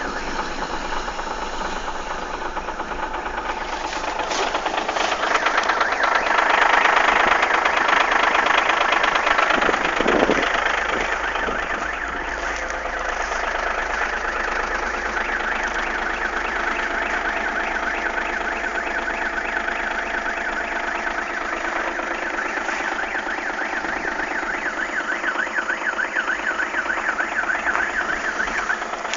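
Audi A6 110 kW V6 TDI diesel engine running with a knocking, clattering sound, the strange engine sound its owner is showing. It grows louder for several seconds about a quarter of the way in, then settles back to a steady run.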